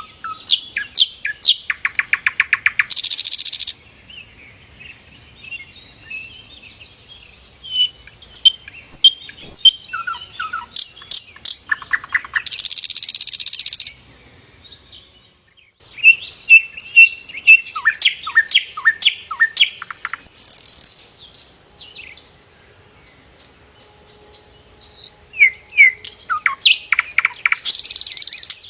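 Sikatan londo flycatcher singing in repeated bouts, four in all with short pauses between. Each bout is a rapid run of sharp, partly down-slurred notes that ends in a loud buzzy trill.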